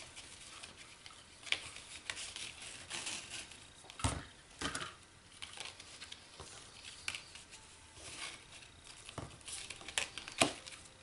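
Rustling and light taps as a cardstock paper stocking and a striped ribbon are handled and the ribbon is wrapped around it, with a sharper knock about four seconds in and another near the end.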